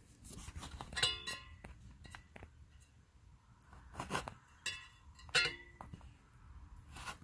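About five sharp metallic clinks, each ringing briefly with a clear pitch, the loudest about a second in, from a sheet-aluminium condenser fan blade and its shroud being handled.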